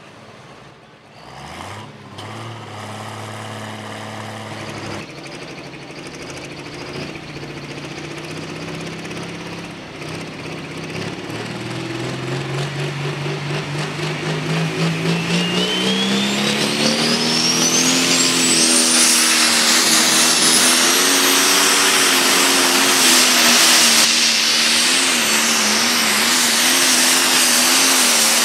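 Turbocharged diesel engine of an International pro stock pulling tractor going to full throttle under the sled's load. About halfway through, the engine note climbs over several seconds, and the turbocharger spools up with a rising whistle that settles into a high, steady whine while the engine holds at high revs.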